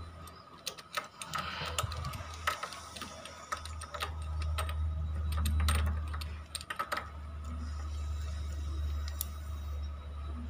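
Spark plug being screwed back into a motorcycle's cylinder head with a tubular box spanner: scattered light metallic clicks and taps of the tool, bunched in the first few seconds and again past the middle, over a steady low hum.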